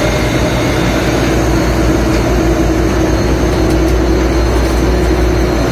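Fishing boat's diesel engine running steadily: a loud, constant low drone with a steady hum above it.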